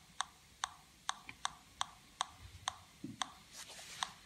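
Homemade Pi Polones pulse-induction metal detector's audio output giving sharp, high clicks at a slow rate of about two a second, the detector's idle ticking. A soft thump about three seconds in and a brief hiss near the end.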